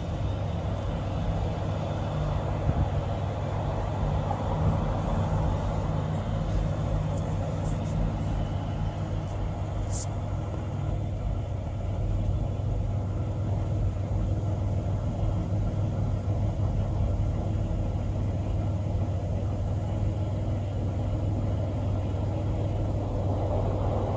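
A vehicle engine running steadily with a low rumble and hum. A single faint click comes about ten seconds in.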